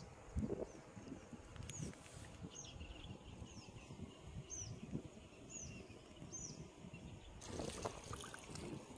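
Riverside outdoor ambience: a small bird repeats a short high call about once a second, six times, over a low rumbling noise, with a louder rush of noise near the end.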